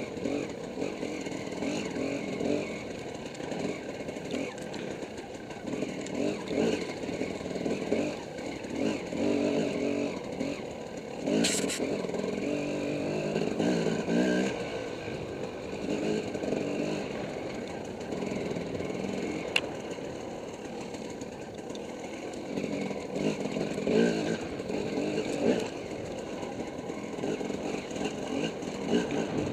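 Dirt bike engine being ridden hard, its revs rising and falling again and again with throttle and gear changes, and a sharp knock about a third of the way in.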